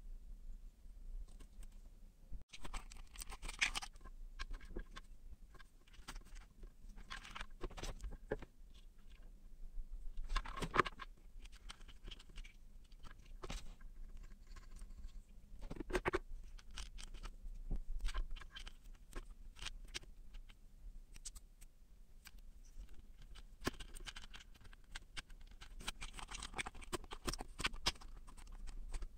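Close handling noise of small electronics work: scattered light clicks, taps and scratches of fingers, wires and a clear plastic enclosure. A denser run of scratching comes near the end, as a jack is worked into the plastic case.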